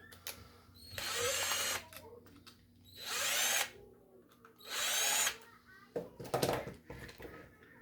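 A small power drill/driver runs in three short bursts of under a second each, its motor pitch rising during each one. A few sharp clicks follow.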